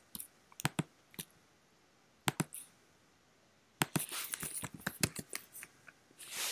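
A few single computer clicks in the first two and a half seconds, then a quick run of keystrokes on a computer keyboard as a search word is typed, followed by a short burst of noise near the end.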